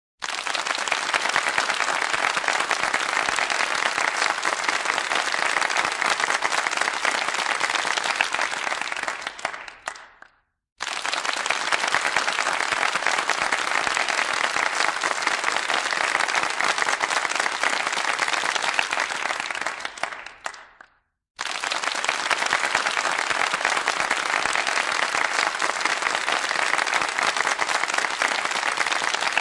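Small studio audience applauding politely: three rounds of about ten seconds each, each starting suddenly and dying away.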